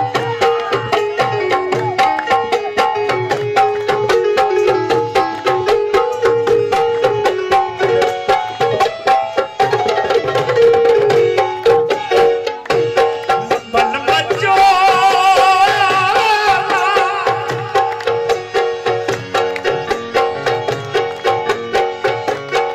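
Live folk music with a hand drum beating a fast, steady rhythm under a melody of held notes. About 14 seconds in, a higher, wavering melody line comes in for a few seconds.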